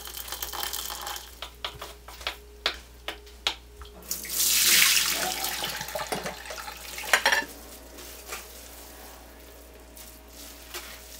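Rice vermicelli in a pot of hot water, with a run of sharp clicks of a utensil against the pot. About four seconds in, water and noodles are poured out of the pot into a metal mesh strainer in a loud rush. A few more knocks follow, then the sound settles to a quieter hiss.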